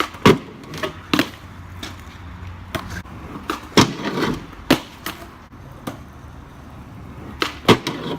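Skateboard rolling on hard ground, its wheels rumbling, broken by sharp clacks and slaps of the board and wheels striking the ground during trick attempts. The loudest hits come about a third of a second in, near the middle and near the end.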